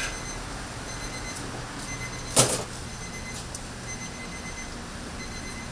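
A single sharp knock about two and a half seconds in, over a steady low hum, with a few faint light clicks.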